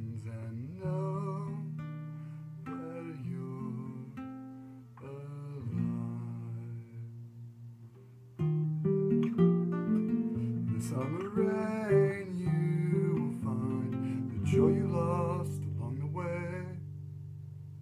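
Acoustic guitar playing chords and picked notes, with a wordless vocal melody gliding over it at times. The playing gets louder and fuller about eight seconds in.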